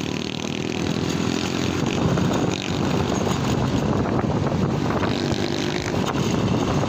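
Motorcycle engine running steadily while under way.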